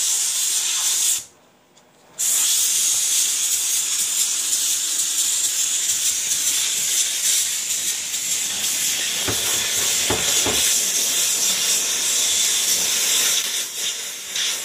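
Kärcher SC4 steam cleaner jetting steam from its hand nozzle: a steady, loud hiss that breaks off for about a second near the start and then resumes.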